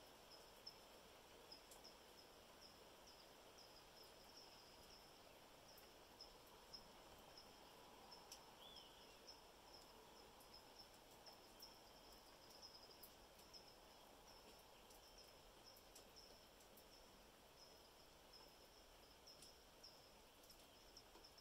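Near silence: faint outdoor ambience of a steady high insect trill made of quick regular pulses, with scattered faint ticks of dripping water and one short bird chirp about eight seconds in.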